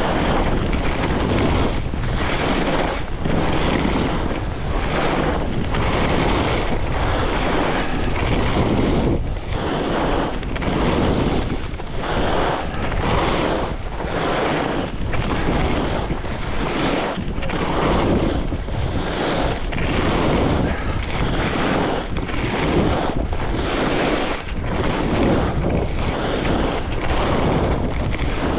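Wind buffeting the microphone of a skier moving fast, mixed with skis hissing and scraping through a few inches of fresh snow on groomed corduroy. The sound swells and dips in a steady rhythm of turns, about one a second.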